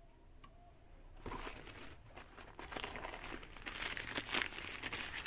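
Plastic packaging crinkling as it is handled and unwrapped, starting about a second in with a dense, irregular crackle.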